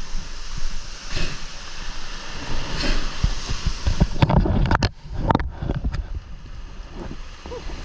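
Surf foaming and washing over a rock ledge right at the microphone: a steady hiss of whitewater with low rumble, and a burst of louder splashing about four to five seconds in.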